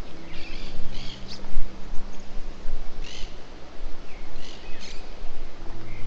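Several short bird chirps over a steady background hiss and a low steady hum.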